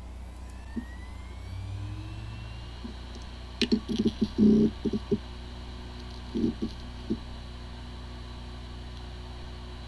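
Hard disk drive with corrupted disk firmware powering up: the spindle whine rises in pitch as it spins up, two short bursts of head clicking and seeking follow, then it spins on steadily. It sounds like a healthy drive, yet the computer cannot detect it.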